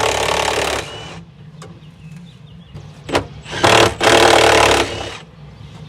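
A power tool running in two bursts of about a second each, a few seconds apart, with a few sharp clicks between them, as the fasteners of a car's underbody shield are taken out.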